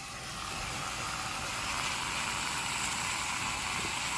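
Steady hiss of a pot of fresh tomato sauce cooking on the stove, building over the first second or so and then holding even.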